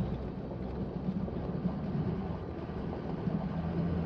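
Pickup truck engine running at low speed with tyres rolling over gravel, heard from inside the cab; a steady hum that strengthens slightly near the end.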